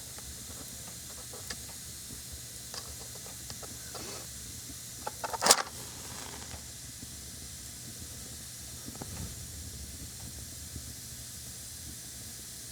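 A wooden match struck once on its box about halfway through: a short, sharp scratch flaring into a brief hiss. Before it come a few faint clicks, and a steady faint hiss runs underneath.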